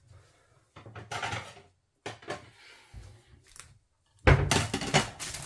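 Kitchen cupboard opened and closed and crockery handled as a plate is fetched, a few soft knocks and rustles, then a louder clatter about four seconds in.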